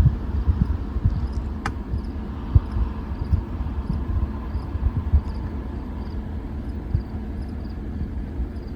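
Wind buffeting the microphone outdoors at night, an uneven low rumble that surges and eases, with faint high chirps repeating steadily about every half second and one sharp click about two seconds in.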